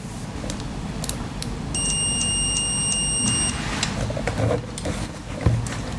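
A high electronic beep held for about two seconds, starting close to two seconds in, over low handling and rubbing noise.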